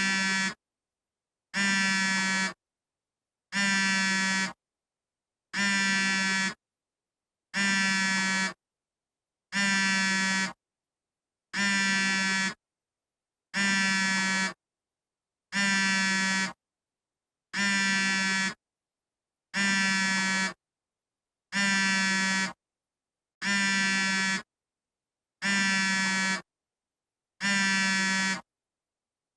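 iPhone vibrating for an incoming call: the vibration motor buzzes in pulses about a second long, one every two seconds, in a steady repeating pattern.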